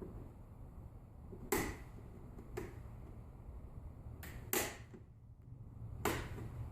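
Plastic snap clips of a Dell Inspiron 15 laptop's screen bezel clicking loose as it is prised off with a flathead screwdriver: three sharp snaps with a couple of fainter clicks between them, over a low steady hum.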